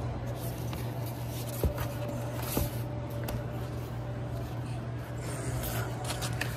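Vinyl LP jackets being flipped through in a cardboard box: cardboard sleeves sliding and rubbing against each other, with two soft knocks early in the flipping, over a steady low hum.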